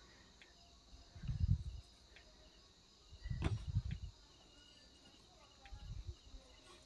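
Faint handling noise as a bundle of TV LVDS cables and wiring harnesses is picked up and shuffled by hand: three low bumps and rustles, the middle one with a sharp click about three and a half seconds in.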